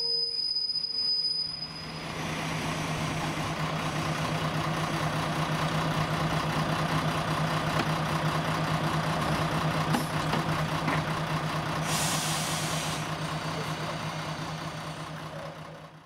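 Diesel engine of a České dráhy class 810 railcar running at idle, a steady low hum with a rattling noise over it. There is a short hiss of compressed air about twelve seconds in, and the sound fades out at the end.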